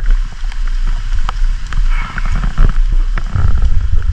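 Rain and wind noise: a loud low rumble with a steady hiss and scattered sharp knocks.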